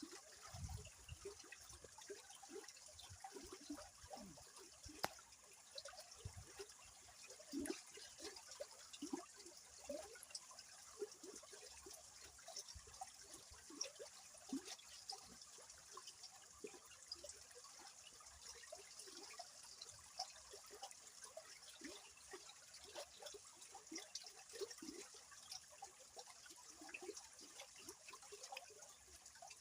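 River water flowing quietly, gurgling and trickling: a steady hiss with many small bubbling plops at irregular moments.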